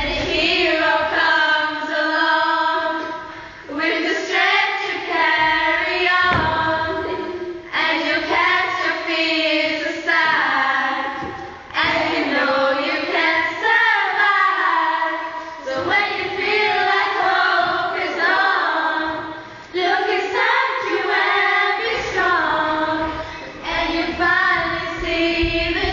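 A group of girls singing together in phrases a few seconds long, with short pauses between them.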